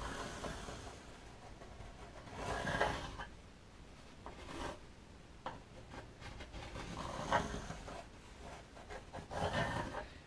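Pencil scratching and rubbing on a surfboard's surface in several short strokes, tracing around a Futures fin box to mark the slot for routing.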